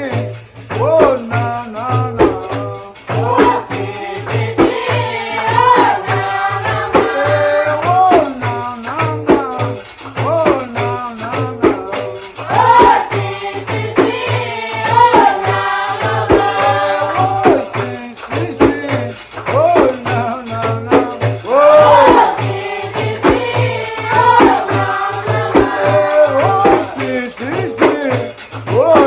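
Folk music: voices singing over rhythmic percussion with shakers.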